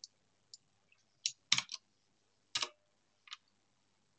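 Several separate clicks of computer keyboard keys and a mouse, spaced unevenly with quiet between them, as text is edited.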